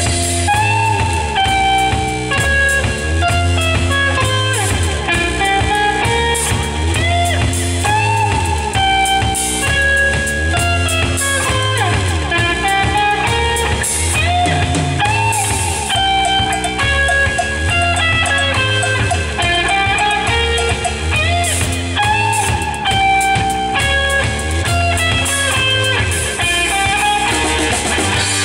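A live rock trio playing an instrumental piece: electric guitar lead lines with bent notes over electric bass and a drum kit.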